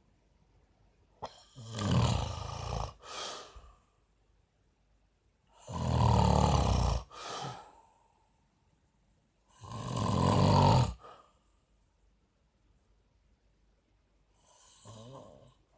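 A sleeping man snoring: three loud snores about four seconds apart, each with a shorter tail right after it, then a fainter snore near the end.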